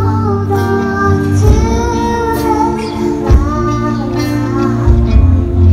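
A young girl singing a slow song with long held notes into a microphone, over a live band: acoustic guitar, electric bass and keyboard, with drums.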